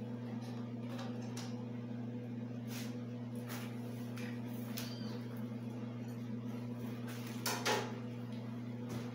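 Arc welding machine switched on and humming steadily, with a few light clicks and a brief louder crackling noise about seven and a half seconds in.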